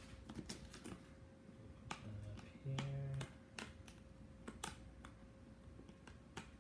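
Scattered light clicks and taps of small cardboard mystery-mini boxes being handled and set down. A short low hum comes a little under 3 s in.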